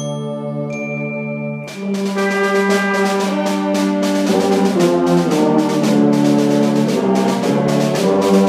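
Brass-heavy wind ensemble playing held chords; a little under two seconds in, the full ensemble comes in louder with a rapid run of rhythmic attacks over sustained brass.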